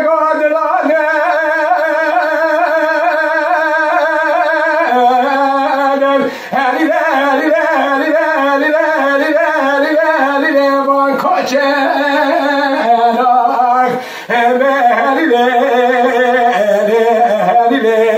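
A man singing dengbêj, the Kurdish unaccompanied sung storytelling: a single strong voice holding long notes with quavering ornaments, dropping lower about five seconds in and breaking off briefly twice.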